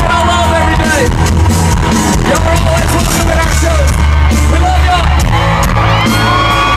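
Live country band playing amplified music, with held, bending guitar-like notes over a steady bass, and a crowd yelling and whooping.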